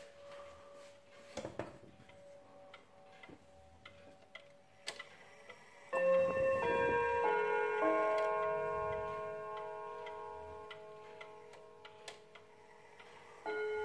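German pendulum wall clock ticking, then about six seconds in its chime rods strike a short quarter-hour chime of several notes that ring on and slowly fade, set off by turning the minute hand. Near the end a second chime begins as the hand is moved on towards the half hour.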